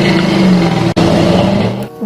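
Car engine sound running at steady revs, its pitch drifting slightly up and down. It breaks off for an instant about a second in and stops just before the end.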